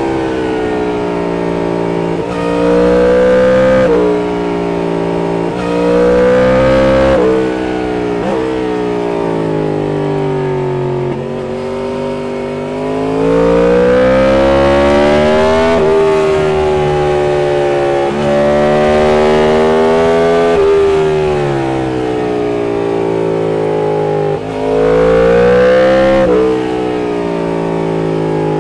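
Yamaha MT-10's crossplane inline-four breathing through an Austin Racing aftermarket exhaust, ridden hard: the revs climb in pitch under acceleration and drop sharply at each gear change. This happens several times, with the engine easing and falling in pitch in between.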